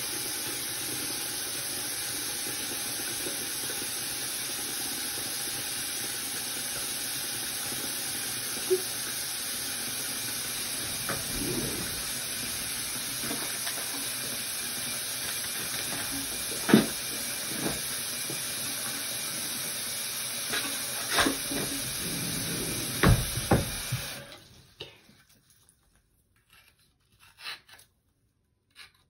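Water running from a tap into a bathroom sink, a steady sound of the sink filling, with a few knocks and clacks of things handled at the basin. The tap is shut off a little over 20 seconds in, leaving near quiet with small clicks.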